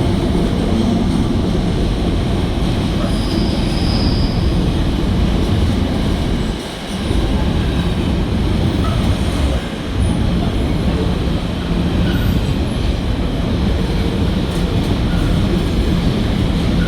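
Train running on the rails: a loud, steady rumble with brief dips about seven and ten seconds in, and a short high-pitched squeal about three seconds in.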